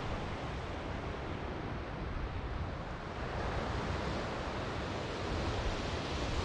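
Ocean surf washing steadily onto the beach, with a low rumble of wind on the microphone.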